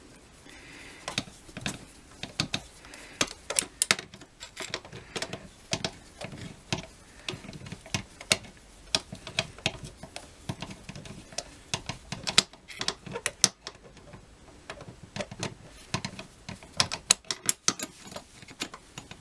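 Irregular light metallic clicks and taps from a screwdriver and screws working on a Tillotson carburetor of a Pioneer P40 chainsaw, as the carburetor is held against the reed plate and its mounting screws are started.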